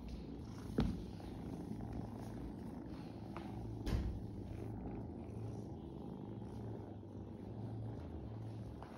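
Kitten purring, a low steady rumble that pulses in a regular rhythm. Two sharp knocks sound, about a second in and about four seconds in.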